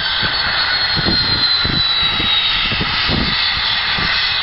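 Cessna Citation business jet's twin rear-mounted turbofans running as it rolls along the runway, a steady rushing engine noise with a high whine that slowly drops in pitch.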